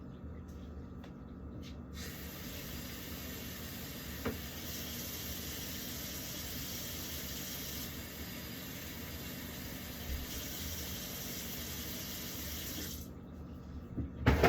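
Kitchen tap running into the sink as a plastic fridge drawer is rinsed off, starting about two seconds in and shutting off near the end. A loud knock follows just before the end.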